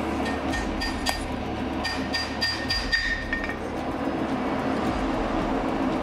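Light hammer blows ringing on an anvil, a quick run of about three to four a second in the first half, while a mild steel staple's taper is re-straightened; a steady forge roar runs underneath.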